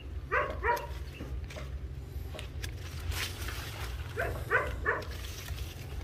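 A dog barking: two quick barks just after the start and three more around four to five seconds in. Between them come a few sharp clicks of hand pruning shears snipping branches.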